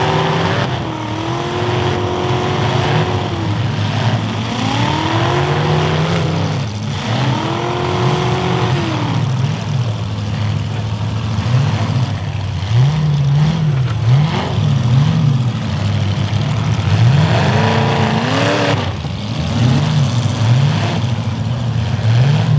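Several demolition derby cars' engines revving hard, their pitch rising and falling again and again as the drivers gun forward and back, with a few knocks of cars hitting.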